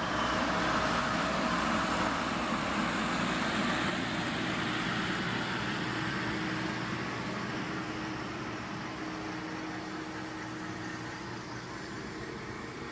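Tractor-driven JF horizontal feed mixer wagon running under PTO power, its augers and side discharge conveyor working as it unloads feed, over a steady tractor engine hum. The level eases off slowly after the first few seconds.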